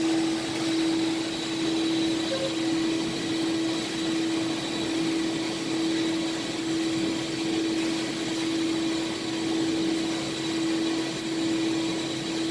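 Electric air blower running with a steady hum, pumping air into the poly flotation tubes of an air boat lift that holds a boat raised out of the water.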